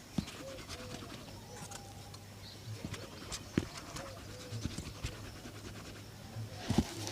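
Pigeons cooing in short paired arching calls a few times, over a faint steady hum, with several sharp knocks; the loudest knock comes just before the end.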